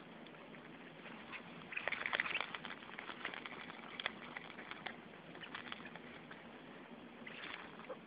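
Puppies scuffling over plush toys: soft rustling and scattered light clicks, with a louder burst of scuffling about two seconds in and a smaller one near the end.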